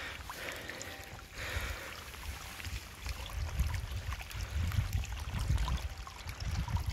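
Muddy rainwater trickling along a shallow spade-cut channel in the grass verge as it drains off a flooded asphalt road into the ditch, with a fluctuating low rumble of wind on the microphone.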